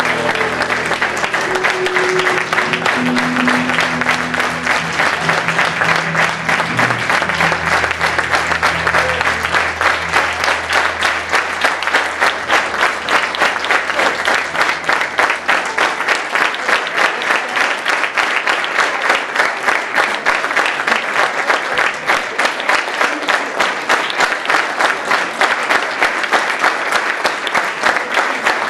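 Theatre audience applauding over the band's closing music, which fades out about ten seconds in. The applause then goes on alone and settles into steady rhythmic clapping in time.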